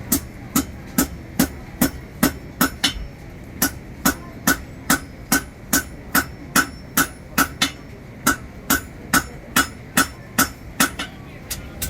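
Blacksmith's hammer striking hot steel on an anvil in a steady rhythm, a little over two ringing blows a second, folding over the handle of a blade forged from a horseshoe.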